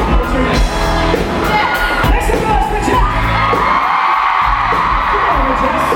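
Live rock-pop band music with a steady beat, played loud over a crowd screaming and cheering.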